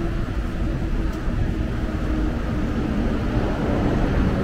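Steady low rumble of city street traffic, with a faint held engine-like hum.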